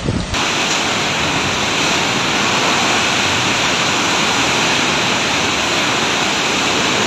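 Torrential typhoon rain pouring down in strong wind: a loud, steady, even hiss that sets in suddenly just after the start.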